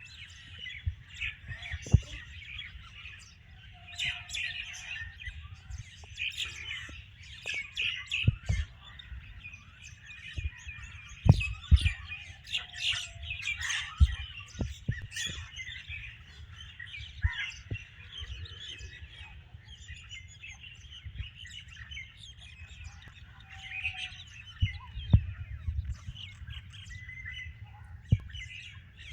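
A flock of small birds chirping and twittering continuously, many calls overlapping. Several sharp knocks stand out above the birdsong, with a low rumble underneath.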